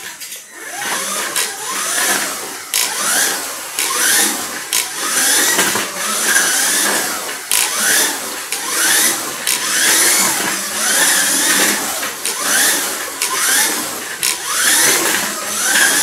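Kyosho Mini-Z RC car's electric motor and gears whining, the pitch climbing with each burst of throttle and dropping off again, over and over about once a second as the car is driven round a tight track. Occasional sharp clicks sit among the whine.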